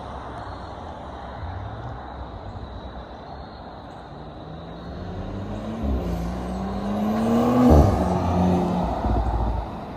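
Audi S5 Sportback's turbocharged V6 accelerating hard under a launch-control start, its note climbing in pitch from about halfway in, peaking loudest near the end and then dropping sharply in pitch as the car goes by.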